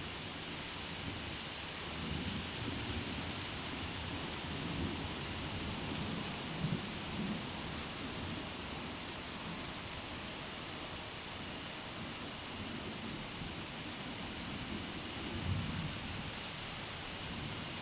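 Chorus of night insects: a steady high trill, with a few short, higher buzzes over it.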